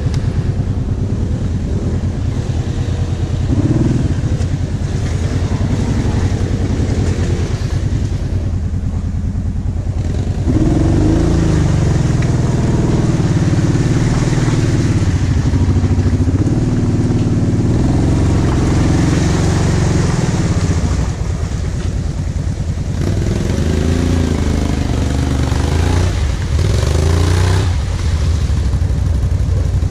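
A quad bike's V-twin engine running under load through deep mud, revving up and down again and again. It is louder and higher from about ten seconds in, drops back a little after about twenty seconds, and rises again near the end.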